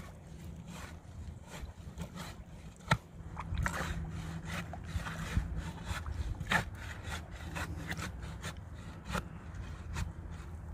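A stick scraping and stirring concrete mix of cement and water in a dirt post hole: irregular short scrapes and clicks, with one sharp knock about three seconds in, over a low steady rumble.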